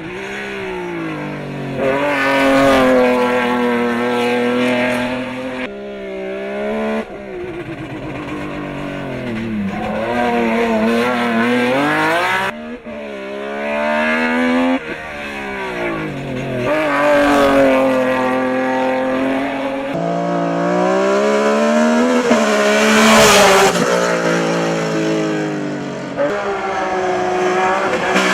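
BMW E30 hill-climb race car engine at full throttle, rising in pitch as it revs out and dropping at each gear change or lift. The sound comes in several short stretches cut together, so the engine note changes suddenly at the joins.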